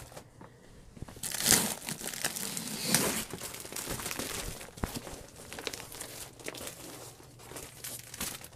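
Crinkling and rustling of cross-stitch kit packaging being handled, irregular and coming and going, loudest about a second and a half in and again around three seconds.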